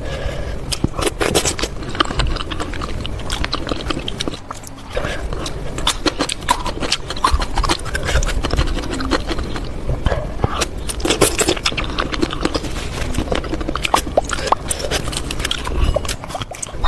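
Close-miked eating of spicy noodle soup: slurping and chewing noodles, with many quick wet clicks and smacks and a short lull about four seconds in.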